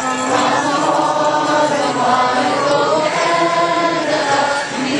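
A large crowd singing together, holding long notes that step from one pitch to the next.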